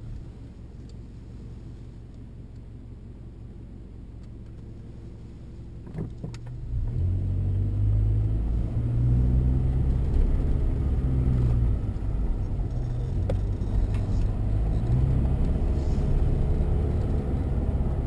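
Car engine and road noise heard from inside the cabin while driving. It runs low and quiet at first, a brief knock comes about six seconds in, and then the engine hum grows clearly louder and stays so.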